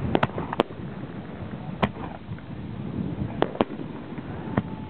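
Aerial fireworks shells bursting in the sky: about seven sharp bangs at uneven intervals. Three come close together in the first second, one follows about two seconds in, a pair about three and a half seconds in, and one more near the end.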